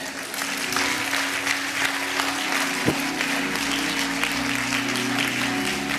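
Congregation applauding over sustained chords played on an instrument, with the held chord changing about four seconds in.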